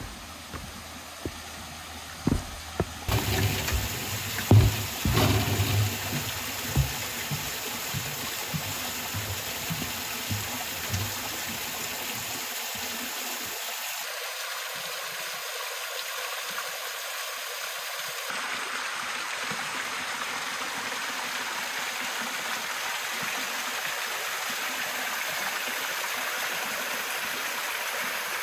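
Steady rushing of a small forest waterfall and creek. In the first few seconds, sharp thumps and knocks of footsteps on a wooden footbridge sound over it.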